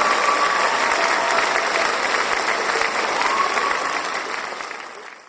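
Crowd applauding and cheering, fading out near the end.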